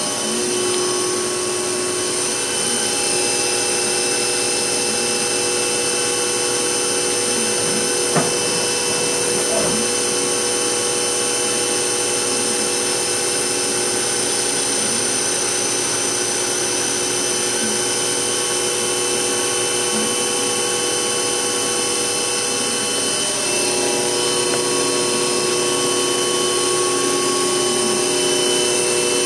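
2006 Hurco VM1 vertical machining center running, with a steady whine made of several high tones. A single click comes about eight seconds in.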